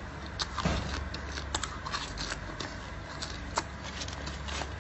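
Close-up chewing of cooked silkworm pupae: irregular wet mouth clicks and smacks, about one or two a second.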